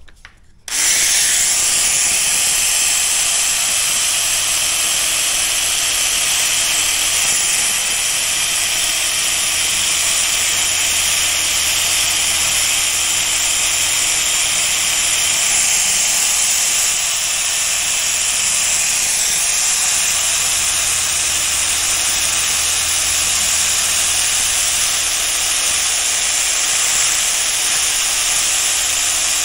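A powered abrasive tool working the steel blade of a pair of Heinisch #12 tailor's shears, resurfacing it to take out pits and discoloration. It starts a moment in with a steady hiss over a faint low hum.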